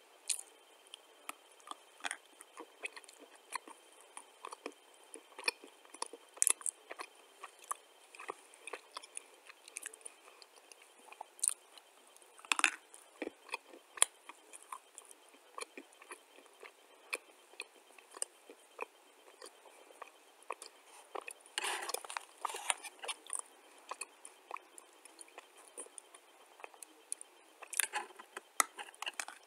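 Dry clay chunks being bitten and chewed right at the mouth: a long run of short, sharp crunches and clicks, densest about 22 seconds in and again near the end.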